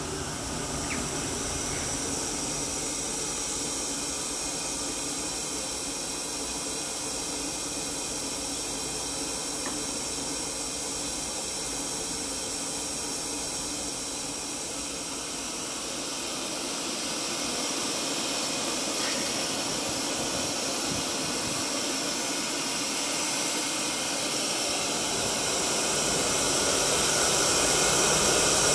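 Steady roaring hiss of a firing kiln, growing louder and brighter over the second half as a spray is directed into the hot chamber.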